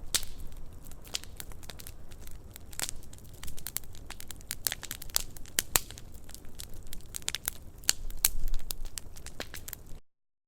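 Campfire crackling: a dense, irregular run of sharp pops and snaps over a low rumble. It cuts to silence for about half a second near the end.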